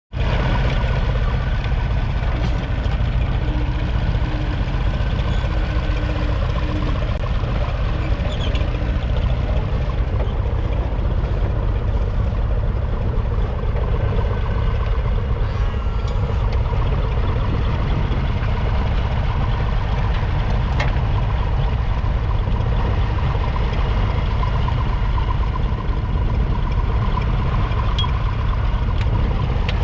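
1953 Ferguson TED20 tractor's 2.1-litre four-cylinder TVO engine running steadily, a continuous low rumble that stays at an even level throughout.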